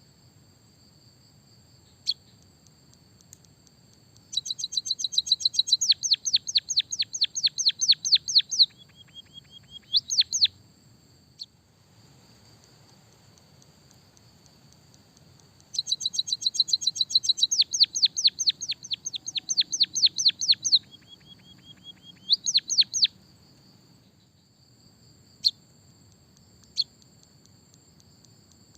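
A songbird singing two matching bouts of rapid, sharp high notes, about ten a second, each ending in a short held note and a few rising chirps, with single chirps between, over a steady thin high whine.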